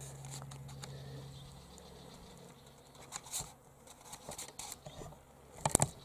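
Scattered dry crackles and clicks of footsteps on dry eucalypt leaf litter and twigs, with a louder cluster of crunches near the end.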